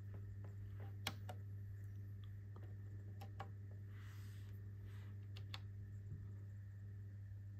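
Plastic front-panel buttons of an Eventide H3000 effects unit clicking as they are pressed, about a dozen separate clicks, the loudest about a second in, over a steady low hum.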